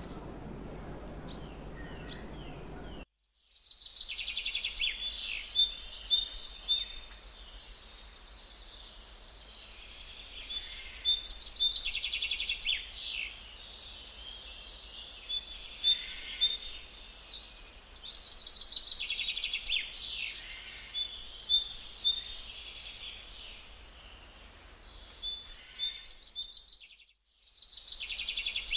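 Small birds chirping and trilling in quick, repeated phrases, loud and busy throughout. For the first three seconds there is only a low steady hum, which cuts off before the birdsong starts.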